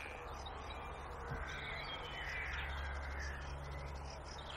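Faint bird calls, crow-like caws, over a low steady hum.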